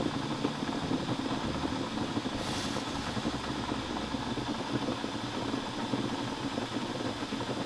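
Soup boiling vigorously in a covered pot, a steady bubbling and seething under the glass lid as steam escapes at its rim.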